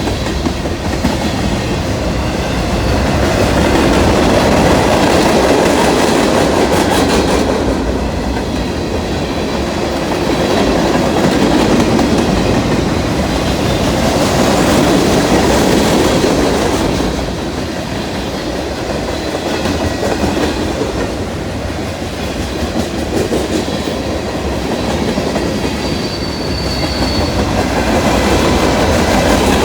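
Fast Norfolk Southern freight train passing close by, its cars rolling and clattering over the rail joints in a loud, steady rumble that swells and eases.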